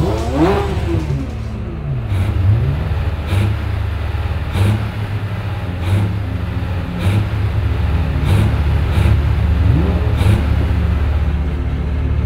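Ferrari 360 Spider's V8 idling over a steady low engine hum, blipped a few times so its pitch sweeps up and falls back: the driver warming the revs on the start line.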